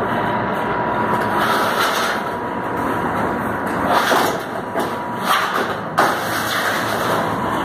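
Corrugated metal roofing sheet being lifted and slid across the roof, with a few sharp metallic clanks and scrapes about four to six seconds in, over steady road-traffic noise.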